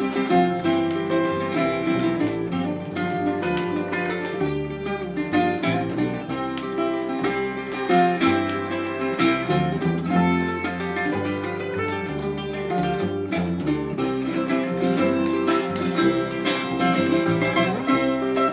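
Custom Aaron Oya tiple, a ten-string all-steel-strung ukulele with its strings in courses of two, three, three and two, played solo: a steady run of strummed chords with ringing notes.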